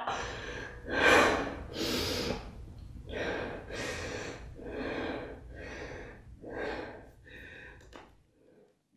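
A person breathing heavily in loud, rasping gasps, roughly one a second, over a low hum; the breaths fade and stop with a sharp click about eight seconds in.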